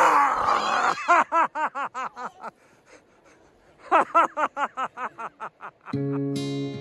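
A sudden loud cry, then two runs of rapid, even 'ha-ha-ha' laughter, each trailing off. Acoustic guitar music comes in near the end.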